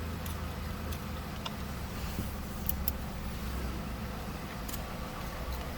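Stand-alone Belanger car-wash air-cannon dryer blowers running, a steady low rumble heard muffled from inside the car, with a few faint ticks.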